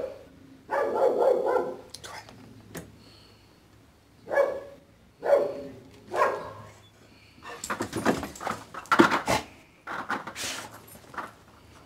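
A Texas heeler (Australian Shepherd–heeler cross) barking behind a closed glass front door, one bark every second or so. About two-thirds of the way in comes a rapid flurry of barks mixed with sharp clicks and knocks, the loudest part, followed by a few more barks.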